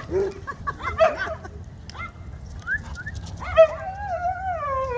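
A dog whining and yipping: short yelps about a second in, then from about three and a half seconds a long wavering whine that slowly falls in pitch. It is the warbling, 'talking' kind of dog vocalising.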